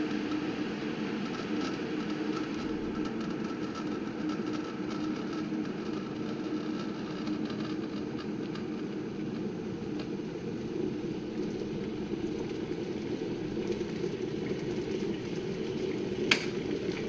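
Aigostar King stainless steel electric kettle heating water close to the boil: a steady rumble with faint crackling of bubbles. Near the end a single sharp click, typical of the kettle's switch turning off at the boil.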